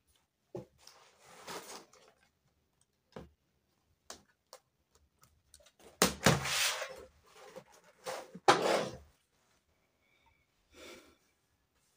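Handling noise close to the microphone as the recording device is moved at a desk: scattered clicks and knocks with rustling, the loudest bursts starting suddenly about halfway through and again a couple of seconds later.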